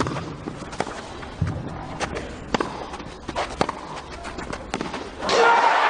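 A tennis rally on a grass court: a serve and then about half a dozen short, sharp racket strikes on the ball, traded back and forth. About five seconds in, the crowd suddenly breaks into loud cheering as championship point is won.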